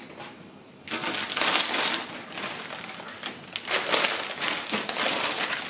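Small plastic chip bags crinkling and rustling as they are picked up and handled, starting about a second in.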